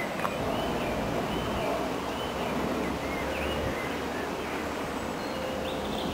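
Outdoor ambience: a steady low rumble with a faint steady hum and small birds chirping faintly now and then.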